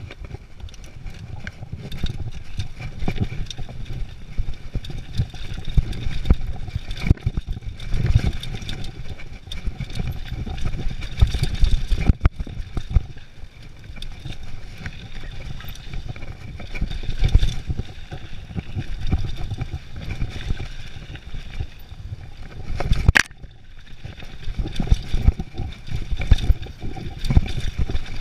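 Downhill mountain bike ridden fast over a dirt trail, heard from a camera mounted on the rider or bike: steady tyre and wind rumble with constant rattling and clatter from the chain and frame over bumps. There is one sharp knock about 23 seconds in.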